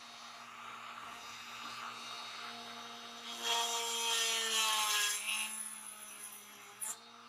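Handheld rotary tool running with a steady whine, then grinding against the end of a toy tractor's metal wheel axle from about halfway through: louder and rougher, with the motor's pitch sagging under the load.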